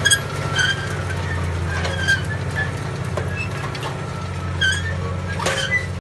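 Tractor engine running steadily under load while pulling a Horsch Terrano 4 FX tine cultivator through the soil, with scattered short clicks and knocks over the drone.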